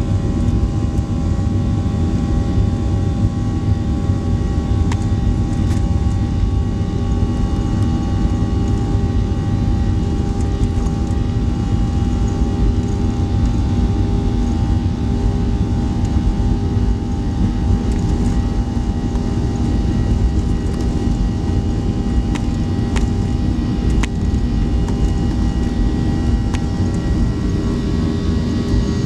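Boeing 737-800's CFM56-7B turbofans at takeoff thrust, heard from inside the cabin during the takeoff roll: a steady engine whine over a heavy rumble of wheels and runway.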